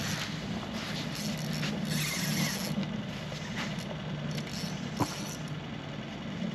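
Spinning fishing reel being cranked in irregular spurts, a scraping, zipper-like whir, with a sharp click about five seconds in, over a steady low hum.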